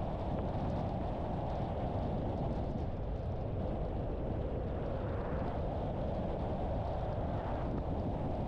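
Steady road and tyre noise of a moving car, with a constant low rumble.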